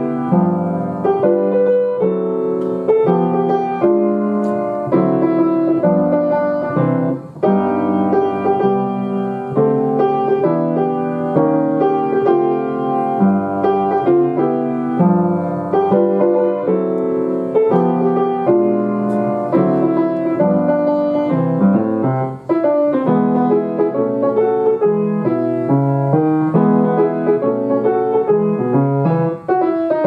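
Background piano music, a gentle run of notes with no break.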